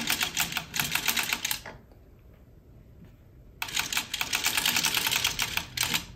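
Dean and Bean hand-cranked sock knitting machine being turned with its needles in, giving a fast rattle of clicks. The rattle comes in two runs, with a pause of about two seconds between them.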